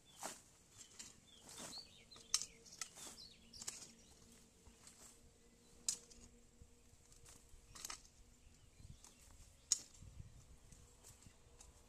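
A hand hoe chops and scrapes into soil, scooping dirt into a wicker basket, giving scattered, irregular knocks and scrapes. Birds chirp in the background during the first few seconds.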